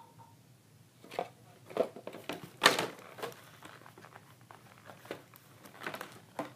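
Plastic toy packaging being handled and crinkled: irregular rustles and clicks, with the loudest crackle about two and a half seconds in.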